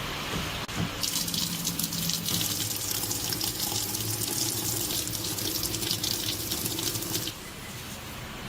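Water running in a steady stream for about six seconds, with a low steady hum beneath it. It starts about a second in and cuts off suddenly.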